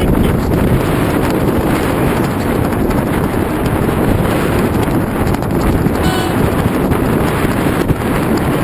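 Wind blowing across a GoPro camera's microphone: a steady, loud rush, heaviest low down.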